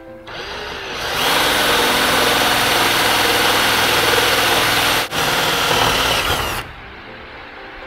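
Ryobi One+ cordless drill spinning up and boring through an aluminium hinge bracket with a long 3/16-inch bit, a steady loud whirr with a brief dip about five seconds in, stopping about six and a half seconds in.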